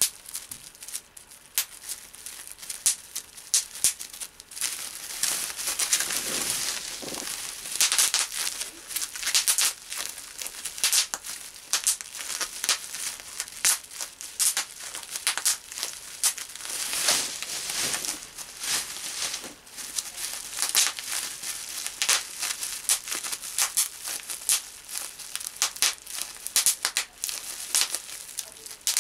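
Bubble wrap being handled and popped between the fingers: many sharp, irregular pops over the crinkling of the plastic sheet.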